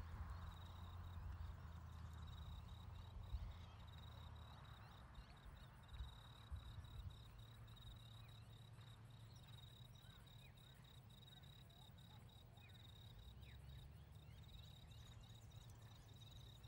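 Near silence: faint rural ambience, with a steady high-pitched insect trill over a low rumble.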